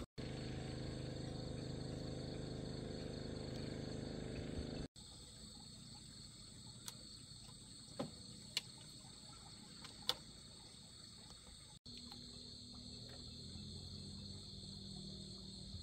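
A steady, high-pitched chorus of night insects. A low hum lies under it in the first few seconds and again near the end. A few sharp clicks come midway, from fingers handling a fish hook and line while baiting it.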